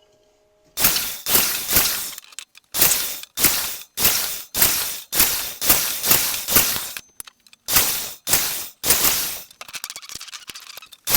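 Power saw cutting small wooden pieces to length, one quick cut after another, about two cuts a second, with a short pause and some light rattling of wood near the end.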